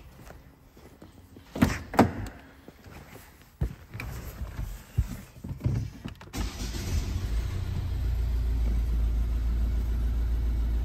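Two loud clunks from the car door about two seconds in and some smaller knocks, then a 2015 Volvo V40's 1.6 diesel four-cylinder engine starts about six seconds in and settles into a steady idle. It is running with the cylinder 4 injector unplugged, so that a fault code for that cylinder is logged.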